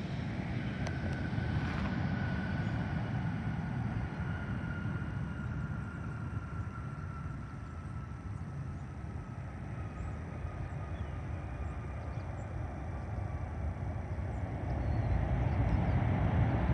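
Boeing 737-700's CFM56-7B jet engines running after landing, heard as a steady low rumble with a faint whine that slowly falls in pitch over the first ten seconds. The rumble grows louder near the end.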